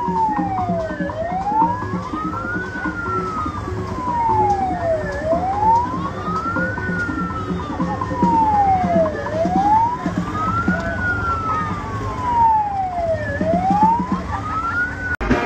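Vehicle siren wailing, its pitch rising and falling slowly about once every four seconds. It cuts off just before the end.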